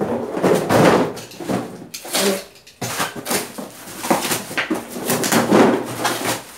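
Cardboard shipping box being set down and its taped flaps torn open: a run of loud ripping and scraping of cardboard and packing tape.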